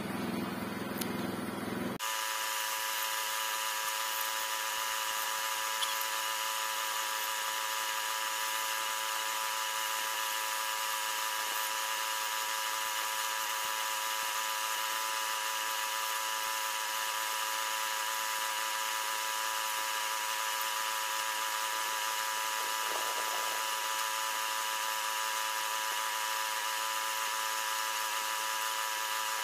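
Air spray gun running steadily, compressed air hissing through the nozzle with a fixed high whistle, as gloss melamine lacquer is sprayed.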